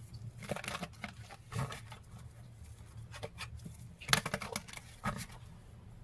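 A deck of tarot cards shuffled by hand: faint, irregular papery rustles and soft clicks of cards sliding against each other, with a louder flurry about four seconds in.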